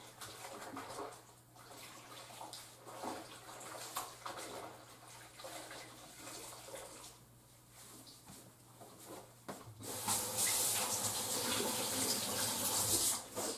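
Quiet knocks and small splashes of washing at a kitchen sink. About ten seconds in, the faucet is turned on and water runs hard into the sink for about three seconds, then stops.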